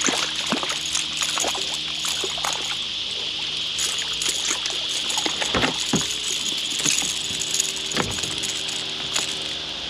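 A hooked palometa splashing and thrashing at the water's surface as it is reeled up beside a kayak and lifted aboard: irregular sharp splashes and slaps. A steady high insect buzz runs underneath.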